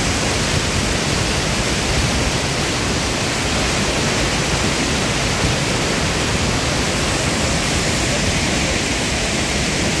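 Steady rush of a tall waterfall crashing onto rocks, with whitewater tumbling over boulders below it.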